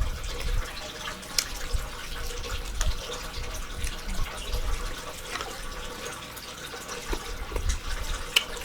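Steady trickle of running water, with scattered faint clicks and taps.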